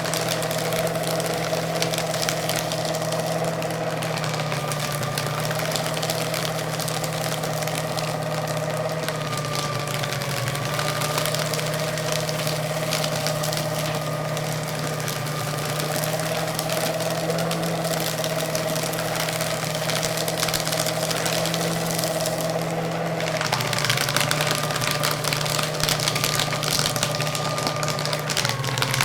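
Electric paper shredder running and shredding paper: a steady motor hum under a dense crackle of paper being cut. About three-quarters of the way through, the motor's note drops slightly and the shredding gets louder.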